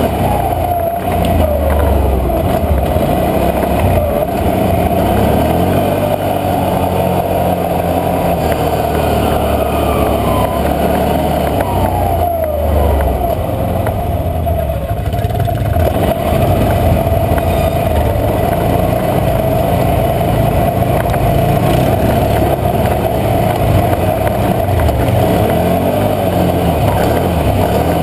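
Can-Am Outlander 650 XMR ATV's V-twin engine running while riding a dirt trail, its pitch sliding up and down with the throttle over a steady drone.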